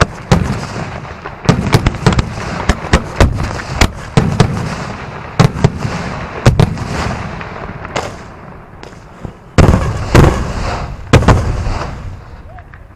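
Pyrotechnic fireworks going off in a rapid barrage of sharp bangs over continuous crackling. The loudest bangs come about ten seconds in, and the barrage fades away near the end.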